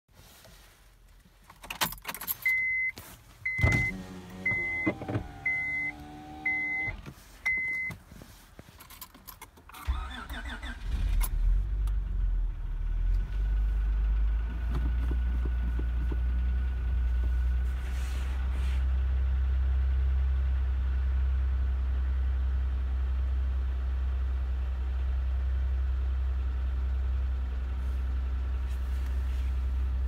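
Keys jangle and a dashboard chime beeps six times, then about ten seconds in the 2004 Honda Accord EX V6 engine cranks briefly, fires and settles into a loud, steady, low idle. The owner puts its diesel-like startup sound down to severe engine wear and piston slap.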